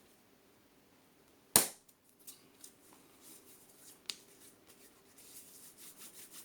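A single loud, sharp click or pop about a second and a half in, followed by a few softer clicks, then a fast run of faint scratchy ticks near the end.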